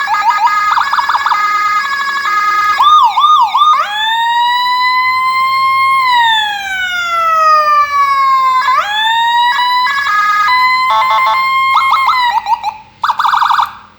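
A 60-watt Whelen electronic siren cycles through its tones. It starts with a fast stepping two-tone pattern and a quick warble, then rises slowly from about four seconds in and falls away in a long wail. A short rise follows, then rapid choppy tones and short bursts, and it cuts off near the end.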